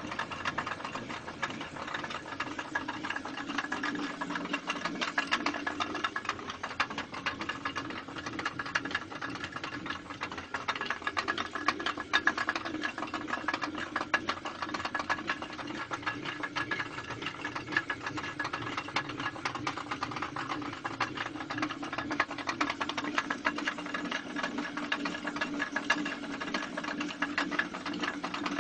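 Traditional Ladakhi water-powered stone flour mill (ranthak) running steadily, with a rapid, even clatter and a steady hum.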